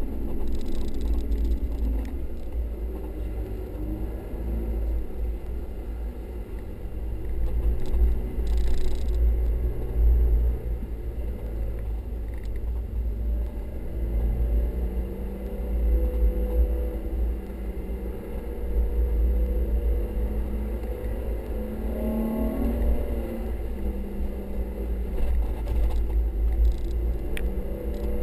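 Off-road vehicle driving over sand dunes, heard from inside the cabin: the engine's pitch rises and falls as the throttle is worked, over a steady low rumble of the vehicle moving across the sand.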